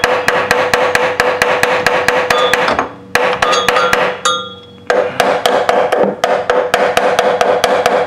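Hammer rapidly striking a 2000 Jeep Wrangler's starter motor, about five to six blows a second, with a short break about three seconds in and a longer one just after four seconds. The key is held in the crank position throughout, yet the starter stays dead and never spins: the starter motor itself has failed.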